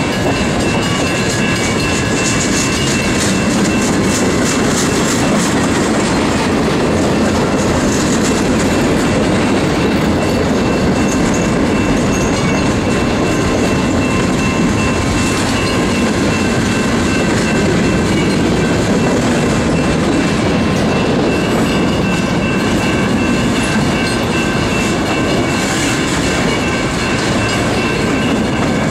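Freight cars of a mixed manifest train (autoracks, coil cars, covered hoppers) rolling past close by: a steady rumble of steel wheels on rail with clickety-clack, and a faint steady high whine above it.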